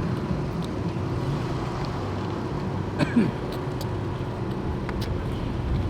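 Steady low hum of a vehicle engine running, with a few light clicks and taps.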